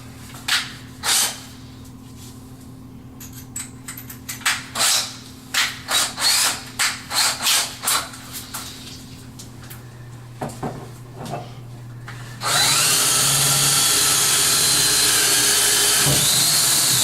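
Scattered knocks and clicks of handling tools and screws, then, about twelve seconds in, a power drill runs steadily with a high whine, driving a screw through the vanity cabinet into the wall.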